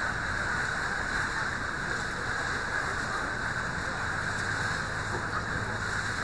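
Steady running noise of a passenger boat under way on the river: its engine hums low beneath the rush of water along the hull.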